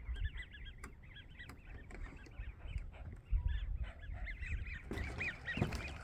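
A distant flock of geese calling: many short, faint, overlapping honks, with a low wind rumble on the microphone.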